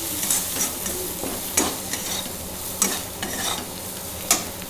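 Flat metal spatula stirring and scraping onion-and-spice masala as it fries in oil in a metal kadhai. A steady sizzle runs under several sharp scrapes of the spatula against the pan, the loudest near the end.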